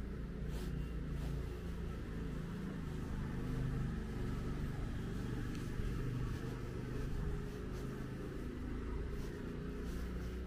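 A motor vehicle engine running out of sight, a low steady hum that grows louder in the middle and then eases off.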